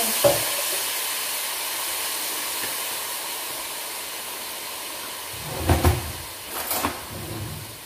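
Blended onion and pepper paste with a little water sizzling and hissing in a hot pot of smoked meat, the hiss slowly dying down. A few dull knocks come about two-thirds of the way in.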